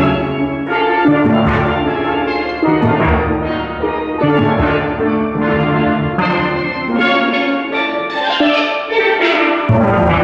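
A steel drum band playing a tune, many steel pans ringing out melody and chords over a bass line. The bass drops out for a moment about eight seconds in and comes back near the end.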